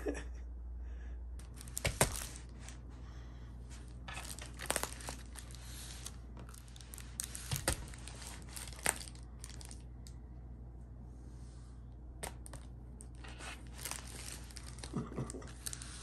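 Irregular bursts of rustling and crinkling, with a few louder crackles among them.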